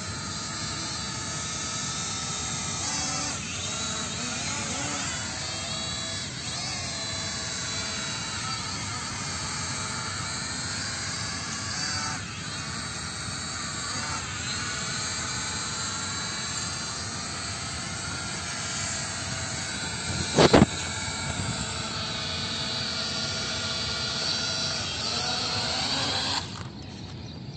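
Three small E88 camera drones flying, their propellers giving a high buzzing whine of several tones that waver up and down as the motors speed up and slow. A sharp knock about two-thirds of the way through is the loudest sound, and the whine cuts off suddenly near the end.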